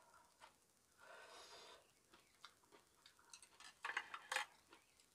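Metal spoon and chopsticks scraping and clinking against a soup bowl while eating, with a short clatter of sharp clicks near the end.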